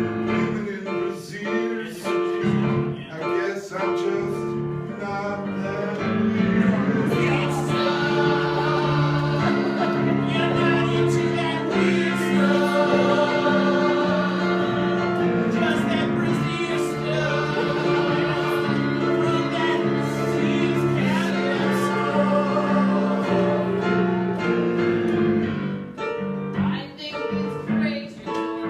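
Music: voices singing held chord notes in a choir style over instrumental backing. The sound grows fuller and steadier about six seconds in.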